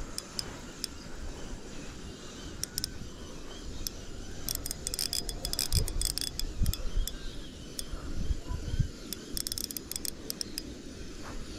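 Short bursts of light, high clicking and jingling, with a few dull low thumps in the middle, as a small perch is reeled in and brought to an inflatable boat on ultralight spinning tackle.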